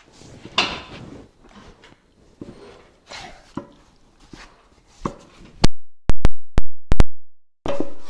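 Scattered metal clanks and scrapes as a car's rear wheel is worked loose from its brake drum. About two-thirds of the way through come five very loud, sharp clicks in quick succession with dead silence between them, then a heavier scraping clunk as the wheel comes off.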